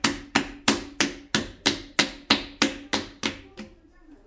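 Hands slapping a 2 kg lump of wet celadon clay on a potter's wheel head, patting it into a cone. The slaps come in an even run of about three a second and stop shortly before the end.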